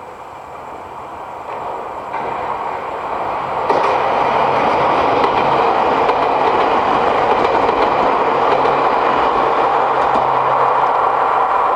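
Nagano Electric Railway train approaching and passing close by: wheels on the rails, growing louder over the first four seconds, then a loud, steady rush as it runs past.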